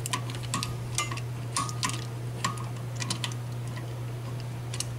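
Sharp metallic clicks at uneven spacing, roughly two a second, several with a brief ring, from a caliper windback tool being turned to screw a rear brake caliper piston back into its bore.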